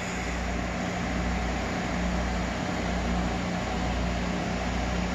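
Steady mechanical hum and hiss of running ventilation equipment, with a constant low hum tone and a deeper rumble underneath.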